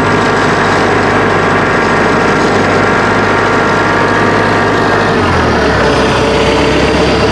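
Norwood HD38 portable band sawmill's gas engine running steadily, its pitch shifting a little about five seconds in.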